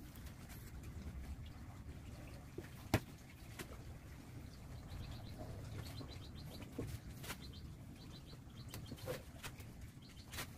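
Light knocks and clicks of segmented wooden bowl rings being handled and set down on a table, a sharp click about three seconds in, over a low steady background rumble. Faint bird chirps come twice in the middle.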